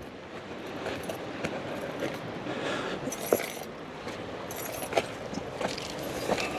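Footsteps scrambling up a loose, sandy dirt bank, with scattered scuffs and clicks and light metallic jingling from carried gear.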